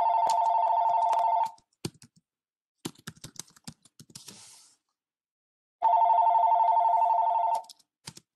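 A telephone ringing twice, each ring a fast-warbling electronic trill about a second and a half long, the second one starting about six seconds after the first. Computer keyboard typing clicks in between.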